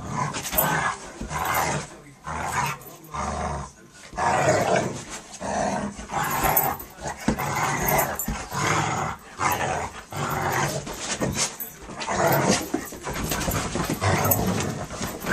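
Two dogs play-fighting, growling in repeated short, rough bursts with brief pauses between.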